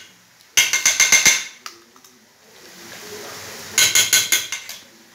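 Metal spoon clinking rapidly against a stainless steel pan, in two short runs of ringing strokes, about half a second in and again about four seconds in.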